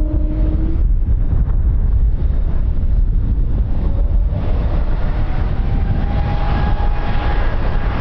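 Aircraft engine noise under heavy wind rumble on the microphone. One engine whine fades out in the first second, and another slowly rising whine builds from about halfway through.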